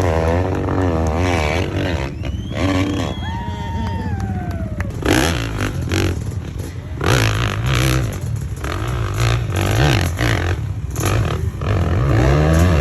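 Hillclimb motorcycle engine revving, its pitch swinging up and down, with a run of sharp cracks through the middle.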